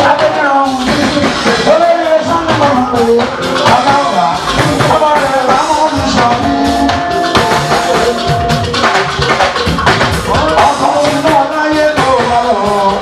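Music with a voice singing over drums.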